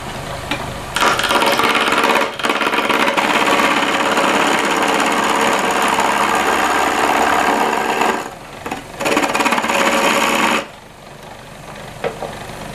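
Small homemade wood lathe running while a hand-held turning tool cuts into a spinning square block of wood, giving a loud, rough scraping chatter. The cutting starts about a second in, breaks off briefly twice, and stops near the end, leaving only the lathe running more quietly.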